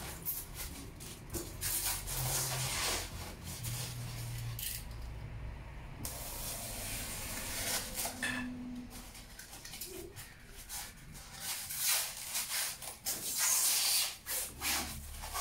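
Irregular rustling and rubbing noises from hands handling objects, coming in uneven bursts, busiest near the end.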